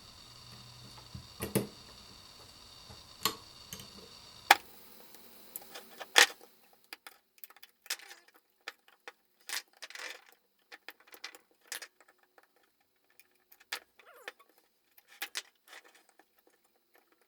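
Scattered clicks, taps and light rattles of hard plastic and small parts being handled as a Makita 18V lithium-ion battery pack is worked on by hand, with a few sharper knocks in the first six seconds. A low background hum stops suddenly about four and a half seconds in.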